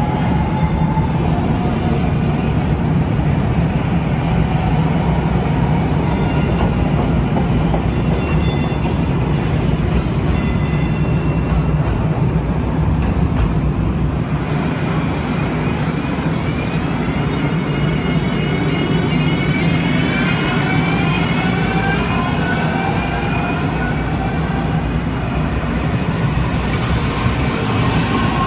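Kinki Sharyo electric light-rail trains running past on street track: a steady rumble of wheels on rail with a low hum. In the second half a whine from the electric drive slides in pitch as a train moves off close by.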